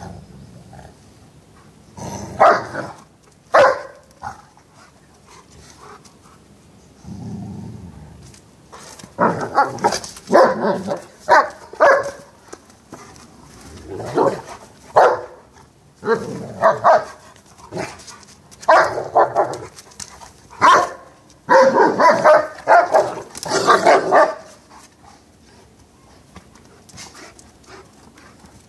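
Two poodles play-fighting, barking in short, loud clusters with a low growl about seven seconds in; the barking dies down near the end.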